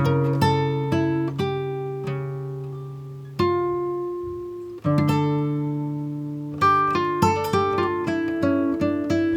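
Background music: plucked acoustic guitar playing picked notes and ringing chords, with a quicker picking passage in the second half.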